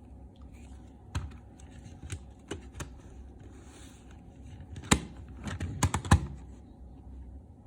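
Scattered clicks and taps from handling a CD and its packaging, with a brief soft rustle; the loudest clicks come in a cluster about five to six seconds in.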